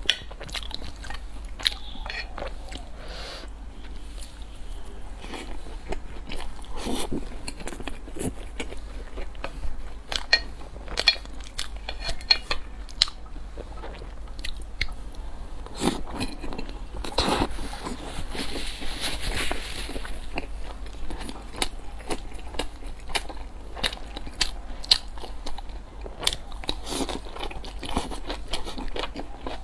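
Close-miked eating sounds: a person biting and chewing food, with many short crunchy bites. A steady low hum runs underneath.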